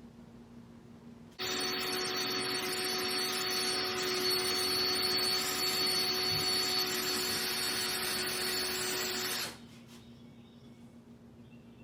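Electric drill running steadily for about eight seconds as it bores into a sheared mower blade bolt, starting about a second and a half in and stopping suddenly.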